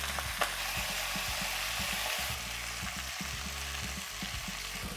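Chicken pieces sizzling steadily as they sear in hot oil in a frying pan, with a short knock about half a second in.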